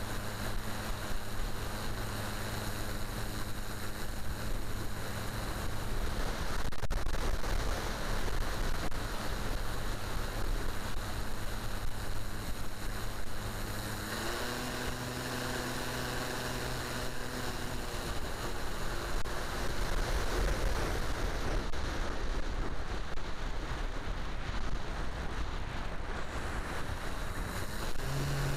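Electric motor and three-blade propeller of a ParkZone T-28 RC plane (E-flite Power 10 brushless) running in flight, a steady hum that steps up in pitch about halfway through and fades a few seconds later. Heavy wind noise on the microphone runs under it.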